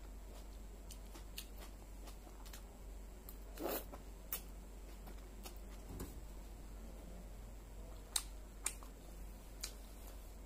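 Close-up chewing of a crisp raw vegetable salad: scattered sharp crunches and clicks, the loudest a little over three quarters of the way in, over a faint steady background.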